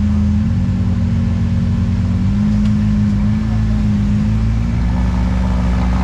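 Off-road competition rock buggy engine running at low revs as the buggy crawls up onto a log, a steady tone that rises slightly in pitch about two seconds in.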